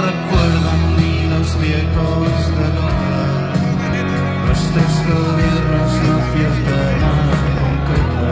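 Live rock band playing through a PA: electric guitars, bass guitar and drums with a steady beat.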